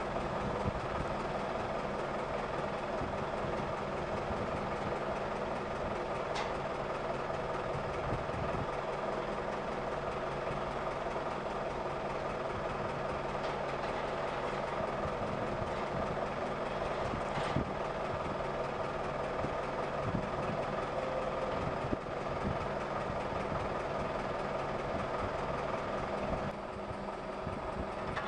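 Mobile crane's engine running steadily at a constant speed, with a couple of brief clicks.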